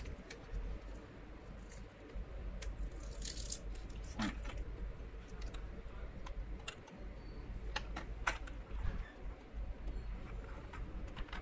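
Scattered light clicks, taps and rustles of hard plastic and circuit-board parts being handled as a laptop motherboard is set into its plastic palm-rest case, over a low steady hum.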